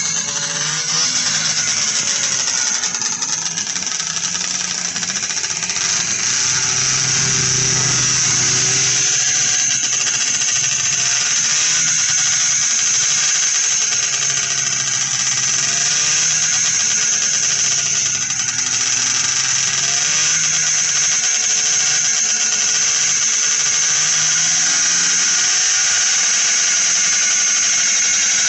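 Vintage two-stroke snowmobile engines running with a high-pitched buzz, their pitch rising and falling every few seconds as throttles are blipped at the start line.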